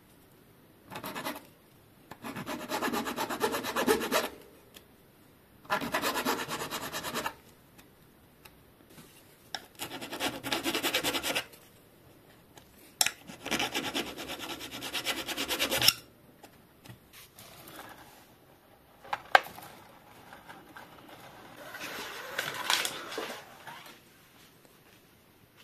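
Small flat hand file rasping on a fitting on a bicycle frame, in several bouts of a second or two each with pauses between them and a few sharp clicks.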